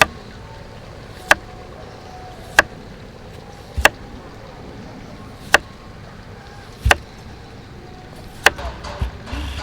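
Slow, evenly spaced chopping on a cutting board with a knife or cleaver: about seven sharp strokes, one roughly every second and a half.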